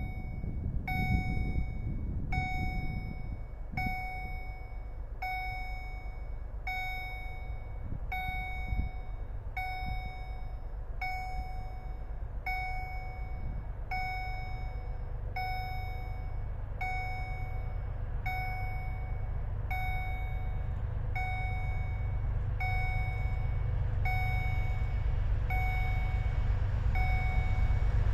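A level-crossing warning bell dinging steadily about once a second. Under it, the low rumble of a pair of ST40s diesel locomotives with a freight train grows louder as they approach.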